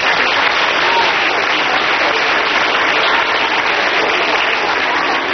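Audience applauding steadily, with a few faint voices among the clapping.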